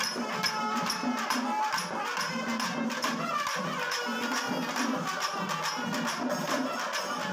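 Kerala temple ensemble (melam) playing: ilathalam cymbals clash in a quick, steady beat while kombu horns and a kuzhal sound held tones over it.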